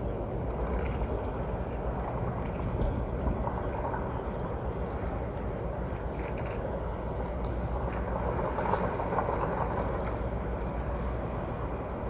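Harbour ambience with the steady low drone of a boat engine running and no change in pitch.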